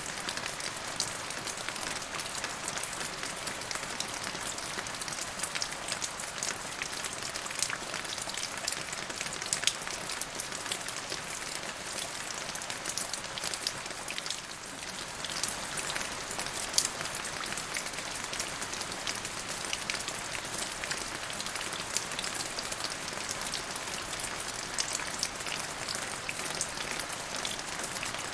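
Steady rain falling on a surface, a dense hiss with many individual drops ticking through it and a brief lull about halfway.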